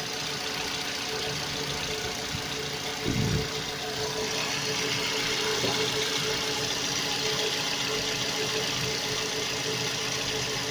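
Car engine idling with a steady tone over its running noise: the extraneous under-hood sound being investigated. About three seconds in there is a short, louder sound falling in pitch, and from about four seconds a brighter hiss joins in.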